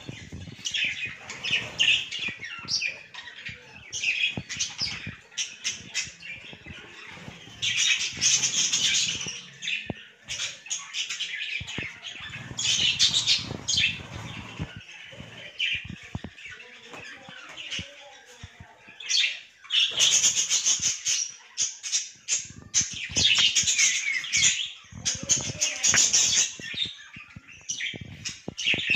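A colony of budgerigars chattering and squawking, with bursts of loud chirping several times and many short clicks and scuffs in between.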